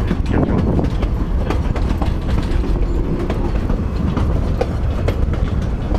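Narrow-gauge railroad cars rolling along the track, heard from an open car: a steady rumble of wheels on rail with irregular clacks over the rail joints.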